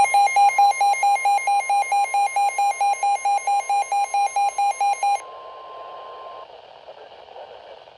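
NOAA Weather Radio alert: a weather radio receiver's alarm beeping rapidly, about four beeps a second, over the broadcast's steady 1050 Hz warning alarm tone that signals a new warning. The beeping stops about five seconds in and the steady tone a second later, leaving faint radio hiss.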